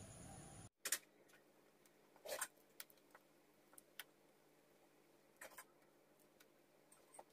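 Faint, unevenly spaced wet slaps and clicks of a hand beating thick urad dal batter in a plastic bowl, about one every second, with near silence between them.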